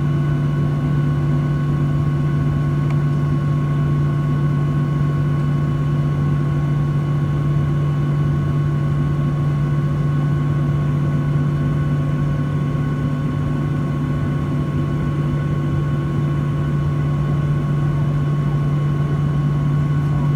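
Boeing 737-800's CFM56-7B turbofan engines heard from inside the cabin: a steady drone with a strong low hum and a few steady higher whining tones over a rushing noise, unchanging throughout.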